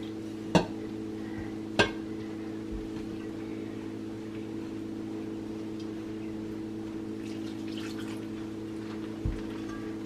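Warm water trickling from a ceramic pitcher into masa harina as a hand mixes it into dough, over a steady low hum. Two sharp clicks come about half a second and two seconds in, with a soft thump near the end.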